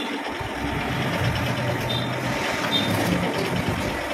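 Road traffic: a large motor vehicle's engine rumbling, with two short high beeps about two and three seconds in.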